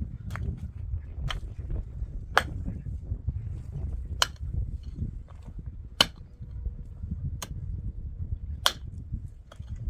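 Steel pickaxe striking hard, stony soil, a sharp crack roughly every second and a half, about seven strikes in all.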